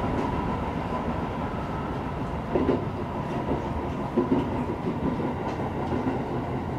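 Shin-Keisei Electric Railway commuter train running alongside a station platform as it pulls in, heard from the front of the car: a steady rumble of wheels on rail with a constant high hum, and a couple of brief knocks about two and a half and four seconds in.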